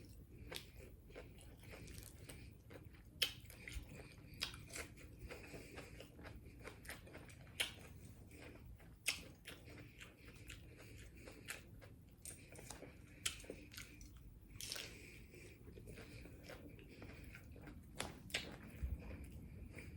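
A person biting into and chewing tacos close to the microphone, with many irregular sharp clicks from the bites and chewing.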